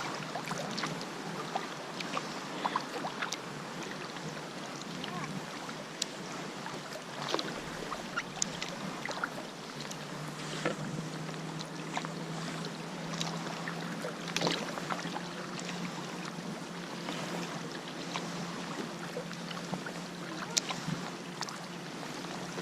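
Kayak paddling: irregular splashes and drips of the paddle blades in the water over a steady wash of water and wind. A low steady hum joins about halfway through.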